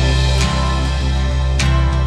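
Background music with a steady bass and a regular beat.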